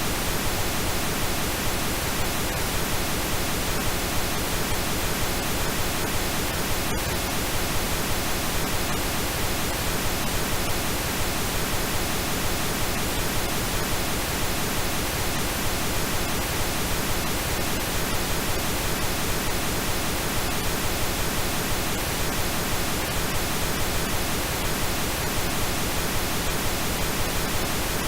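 Steady synthetic pink noise: an even, unchanging hiss across the whole range, with no tones or breaks.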